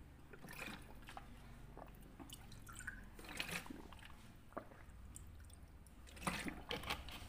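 Faint gulping and water sloshing as a man drinks from a plastic water bottle in two swigs, with scattered small clicks.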